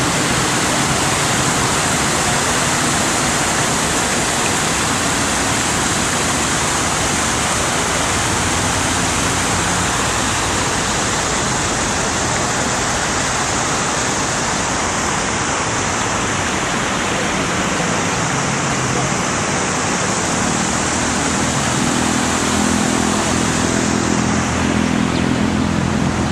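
Outdoor fountain's falling water rushing steadily, a loud even hiss; a low hum comes in near the end.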